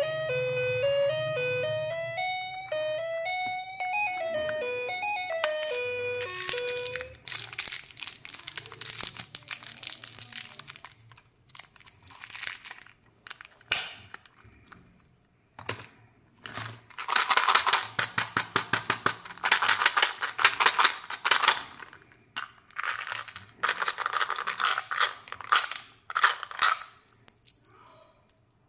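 A short melodic jingle plays for the first several seconds, then a candy wrapper is crinkled and torn open in repeated clusters of crackling, loudest in the second half.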